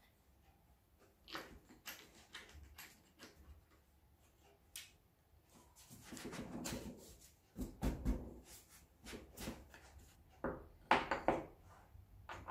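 Hands handling plywood jig parts and small metal hardware: scattered clicks and taps of bolts and wing nuts, a stretch of wood rubbing on wood about six seconds in, and a cluster of knocks near the end as a wooden hold-down clamp is set onto a bolt.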